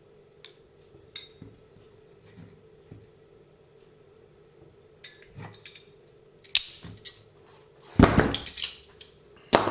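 Small metal clinks and clatter from pliers and a steel RC suspension bolt being handled and bent in a drilled wooden block, scattered at first, with a louder clatter about eight seconds in and another near the end.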